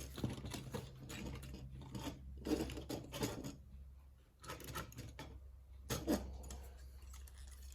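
Irregular plastic clicks and rattles of a LEGO buildable figure's ball joints and parts being moved by hand while it is posed.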